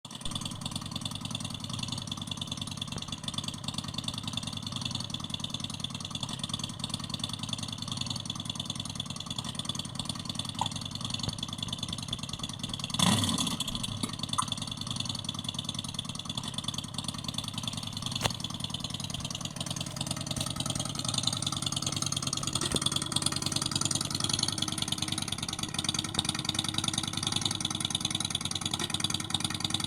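Simulated motorcycle engine sound played from an electric scooter's sound-effect speaker, idling steadily, with a short rev about thirteen seconds in and a somewhat louder sound over the last third.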